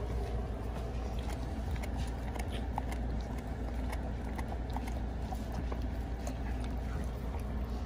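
Mother German Shepherd licking her newborn puppy clean: faint, irregular wet clicks and smacks over a steady low hum.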